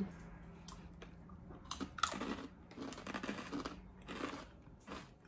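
Crunchy rolled corn tortilla chips being bitten and chewed: a few sharp snaps, then irregular crunching for a couple of seconds.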